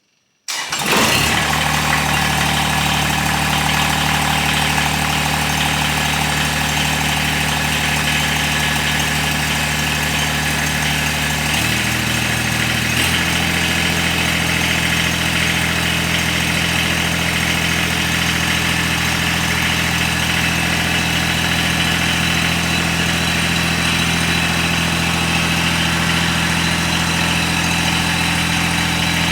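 An engine running steadily at idle. It starts abruptly, and its pitch shifts briefly about twelve seconds in before settling.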